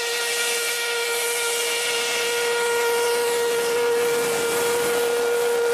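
Steam locomotive whistle sounding one long, steady single-note blast over the hiss of escaping steam.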